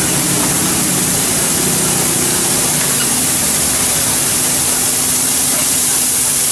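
Bean sprouts sizzling and steaming on a hot teppanyaki griddle: a loud, steady hiss, with a steady low hum underneath.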